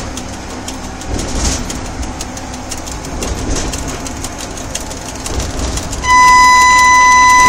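Train running noise heard from inside a locomotive cab: a steady rumble with scattered clicks of wheels over the rails. About six seconds in, a loud, steady high-pitched electronic beep starts and holds.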